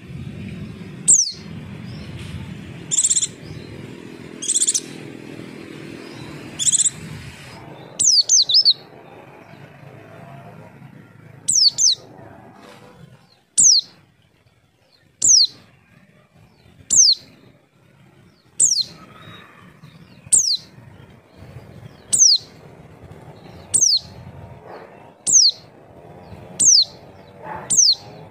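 White-eye (pleci) giving a short, high call that slides quickly downward, repeated about every second and a half or so. It is a calling sound used to lure other white-eyes into answering.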